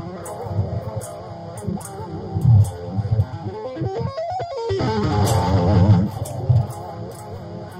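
Electric guitar played shred style: fast runs of single notes over low notes. About four seconds in, a two-handed tapping run sweeps up in pitch and back down.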